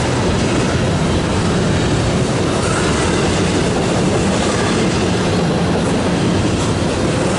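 Double-stack intermodal container train rolling past: a steady rumble of steel wheels running on the rails.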